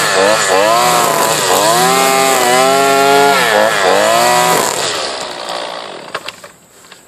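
Husqvarna 128LD string trimmer's two-stroke engine revving up and down while edging. About four and a half seconds in the engine note drops away and the sound fades out, leaving a few faint ticks near the end.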